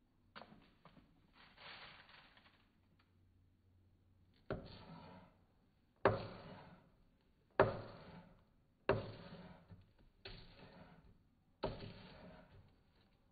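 Knife chopping on a cutting board: six slow, separate chops about a second and a half apart, each trailing off briefly, after some softer rustling at the start.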